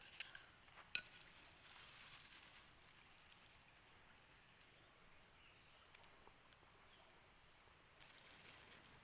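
Near silence: faint outdoor ambience, with a soft click about a second in.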